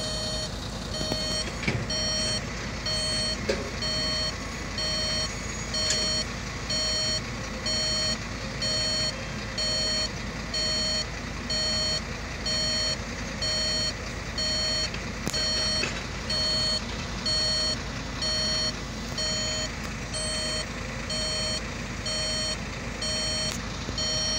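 Heavy-equipment reverse alarm beeping steadily, about once a second, over a diesel engine running.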